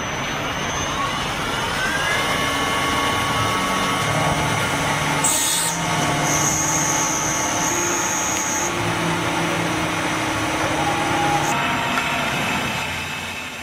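CNC machine tool running, a steady machining noise with a held whine and a few tones that rise and shift in pitch, fading out near the end.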